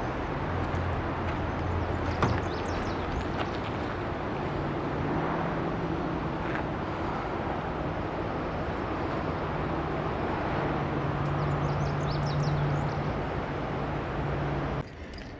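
Steady rumble of a running vehicle, with a low engine hum that shifts in pitch now and then and a few faint high chirps; it cuts off abruptly near the end.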